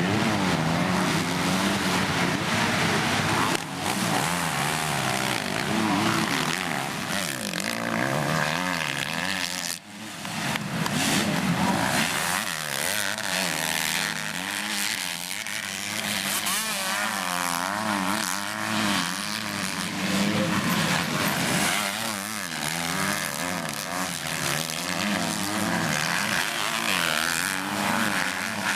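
Several motocross bikes racing, their engines revving up and down and overlapping as riders pass and work through the track, with a brief drop about ten seconds in.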